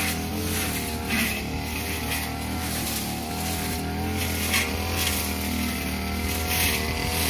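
Two-stroke '328' brush cutter with a metal blade running steadily at high speed, cutting tall dry grass. Short hissing swishes come several times as the blade sweeps through the clumps.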